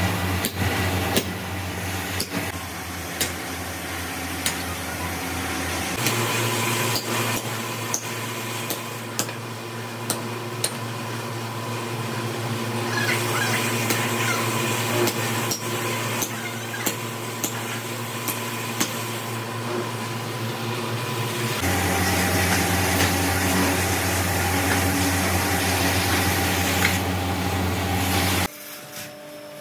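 Steady hum of workshop machinery, with scattered sharp metallic knocks and clinks of cast-iron pieces being struck and handled. The hum changes abruptly twice.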